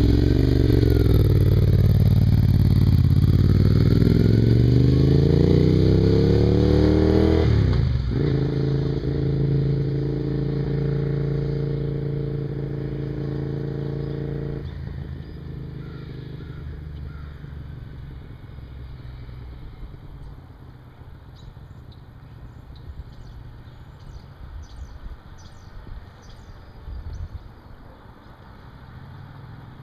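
Ducati Monster 696's air-cooled L-twin through Termignoni silencers, accelerating away with its pitch climbing, dropping sharply at a gear change about eight seconds in, then running steady and fading into the distance by about fifteen seconds in.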